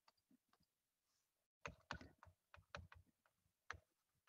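Faint, irregular clicks and taps of a stylus writing on a touchscreen, mostly from about a second and a half in.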